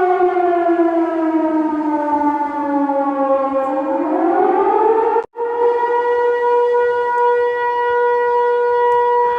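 Civil-defence-style siren wailing: its pitch sinks slowly, then climbs, and after a brief break about five seconds in it holds one steady tone.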